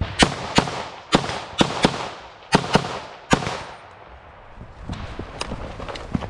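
Rifle shots fired one at a time in quick succession, about eight in the first three and a half seconds, each with a short echo. Then a quieter pause with a few fainter sharp sounds.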